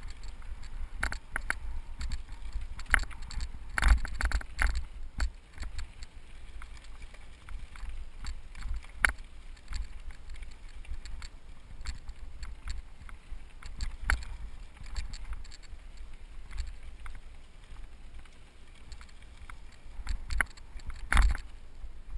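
Cyclocross bike rolling over a bumpy dirt singletrack, with irregular rattles and knocks from the bike as it hits the ruts, the hardest about four seconds in and near the end. A steady low wind rumble sits on the microphone underneath.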